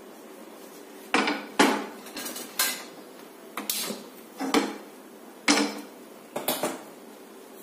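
A frying pan and kitchen utensils clattering on a gas stovetop: about ten sharp knocks and clinks at uneven intervals, some in quick pairs.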